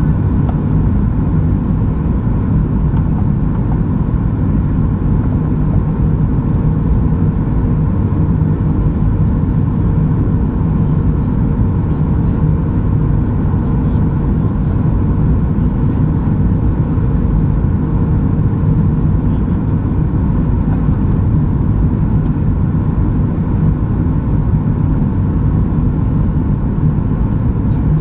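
Steady cabin noise inside a Boeing 737-800 in flight: airflow and its CFM56-7B turbofan engines, heavy in the low end, with a faint steady hum that stops about two-thirds of the way through.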